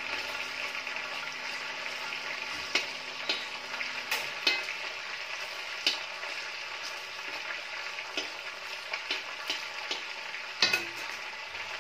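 Whole spices (dried red chillies, bay leaves, cinnamon, cloves and cumin) sizzling and crackling in hot oil in a metal kadai, the tempering stage of a masala. They are being stirred with a metal spatula, giving scattered sharp clicks and scrapes against the pan over the steady sizzle.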